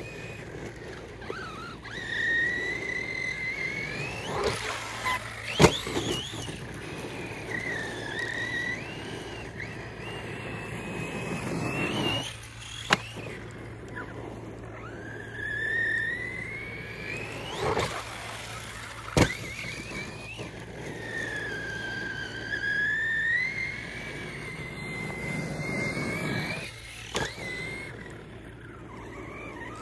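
Brushless electric motor and drivetrain of a Rival MT8 1/8-scale RC monster truck on 6S, whining up and down in pitch as the throttle is worked. Three sharp knocks stand out.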